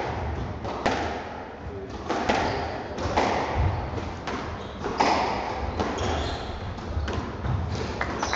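Squash rally: the ball is struck by the rackets and hits the court walls in sharp, echoing cracks about once a second.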